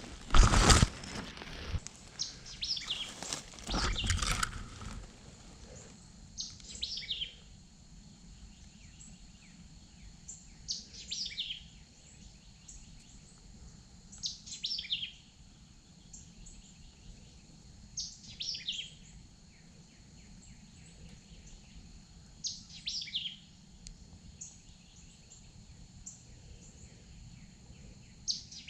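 Rustling and knocking in the first few seconds. After that, a songbird sings a short high phrase that falls in pitch, about once every four seconds.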